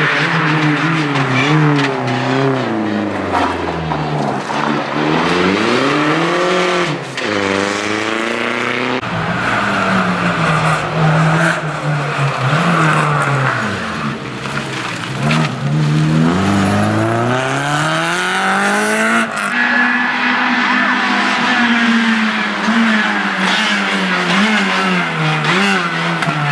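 Rally cars' engines revving hard as they go by one after another, including a Renault Clio and a Ford Fiesta: the pitch climbs, drops sharply at each gear change and climbs again, with deep dips as they brake and slow for corners.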